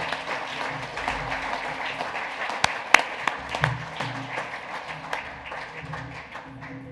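Audience applauding, a dense patter of many hands clapping, with background music playing underneath. The clapping thins and fades over the last few seconds.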